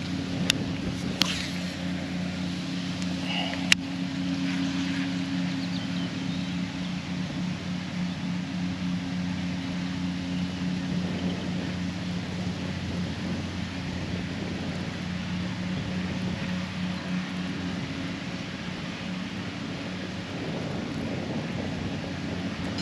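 A steady low engine-like hum drones throughout, with wind noise on the microphone. There are three sharp clicks in the first four seconds.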